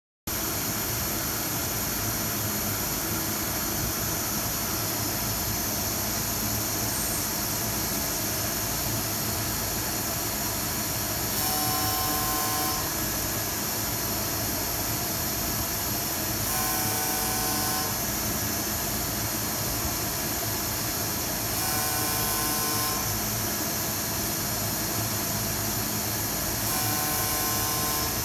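Invisi LUM-XML excimer laser lift-off machine running: a steady mechanical hum and hiss. About every five seconds a short whine of several steady tones rises over it and then drops away, four times.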